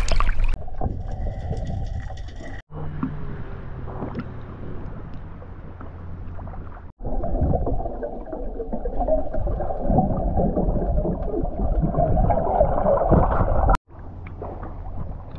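Water sloshing and bubbling around a handheld action camera as a snorkeller swims at the surface and dips underwater. The middle-to-late part is muffled, as heard from below the surface. The sound comes in separate stretches that cut off abruptly, about three seconds in, about seven seconds in and near the end.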